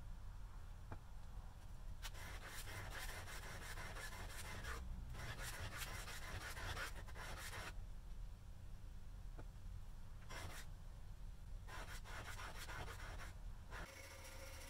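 Steel slick blade rubbed back and forth on abrasive paper laid over a flat stone, lapping the back flat: several long scratchy strokes with short pauses between them.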